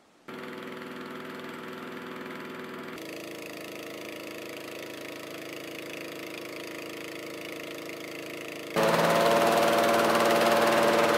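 Small petrol engine of a hot air balloon inflator fan running steadily, cold-inflating the envelope. It cuts in abruptly just after the start and becomes much louder about nine seconds in.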